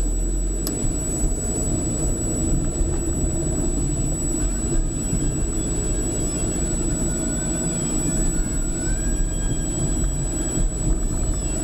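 A car's engine and tyres on a wet road, heard inside the cabin through a dashcam's built-in microphone: a steady low drone. A thin, constant high-pitched tone sits over it.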